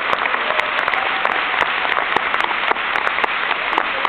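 Audience applauding, many hands clapping at once in a steady, unbroken stream.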